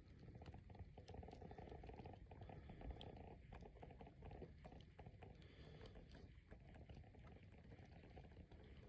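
Faint footsteps crunching in snow, a dense run of small crunches, with low wind noise underneath.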